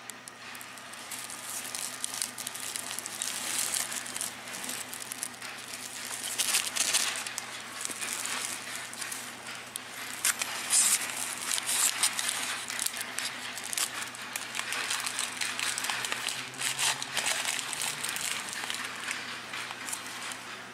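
A thin plastic bag and a paper food wrapper crinkling and rustling in irregular crackles as a croquette is handled, loudest about six and eleven seconds in, over a faint steady low hum.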